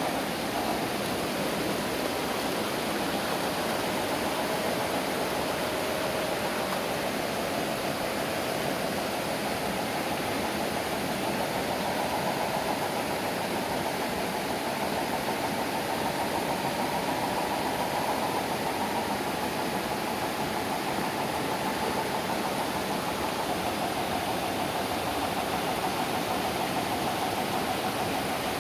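Small electric motor and gearbox of an MN 128 scale RC rock crawler whining as it crawls, its pitch wavering and rising a little midway, over a steady rushing noise like flowing water.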